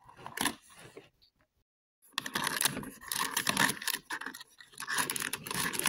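Cardboard advent-calendar door being pried open with a few small clicks, then, from about two seconds in, a long stretch of crackling and rustling as the small packaged item inside is handled.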